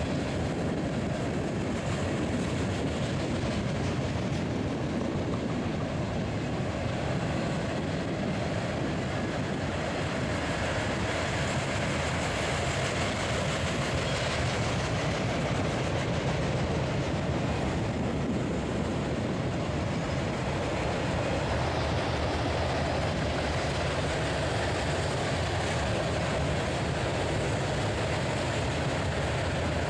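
Freight train of covered hoppers and boxcars rolling past, a steady, even noise of wheels on the rails with no single loud event.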